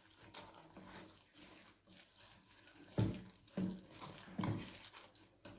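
Hand mixing fine semolina freshly wetted with hot water in a stainless steel bowl: soft, wet squishing and scraping of the crumbly dough, a handful of short squelches in the second half.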